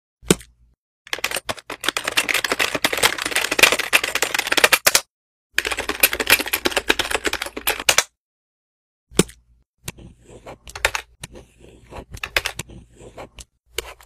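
Rapid typing on a computer keyboard in two fast bursts, the second ending about eight seconds in, followed by scattered, fainter key or mouse clicks.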